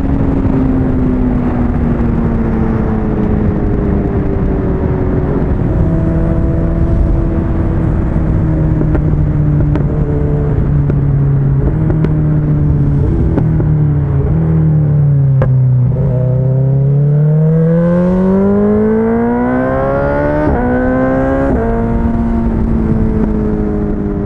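BMW S1000XR's inline-four engine with wind noise while riding. The engine note sinks slowly as the bike eases off, then climbs under acceleration from about two-thirds of the way in, with two quick upshifts near the end, after which it holds a steady cruise.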